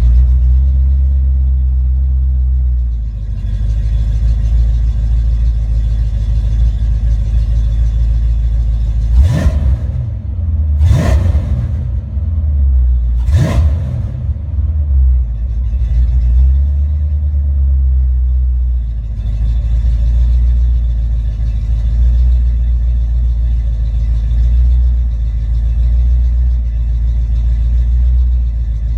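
Ford Mustang 5.0 V8 idling, running on a rebuilt A9L engine computer under test. About nine seconds in it is revved three times in quick succession, each rev rising and falling back, and it then settles back to a steady idle.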